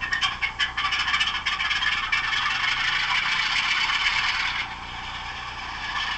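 Howes DCC sound decoder in a model Class 47 locomotive, playing a recorded Class 47 Sulzer V12 diesel start-up sequence through the model's small speaker, thin and without bass. A few sharp clicks come in the first second, then loud engine noise that drops to a steadier, quieter running sound at about four and a half seconds.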